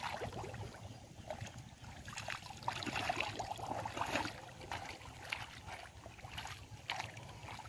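Gloved hands working in the shallow muddy water of a flooded rice paddy: irregular small splashes and squelches as clumps of rice seedlings are pulled from the mud.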